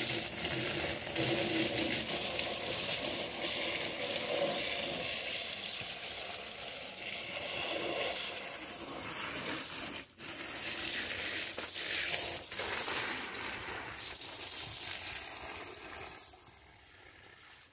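Water from a garden hose spraying and splashing onto a motorcycle's rear wheel and bodywork, a steady spray that cuts out for a moment about ten seconds in and grows fainter near the end.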